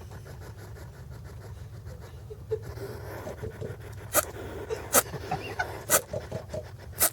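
Hedgehog sneezing four times, short sharp sneezes about a second apart, starting about four seconds in, with small irregular noises between them.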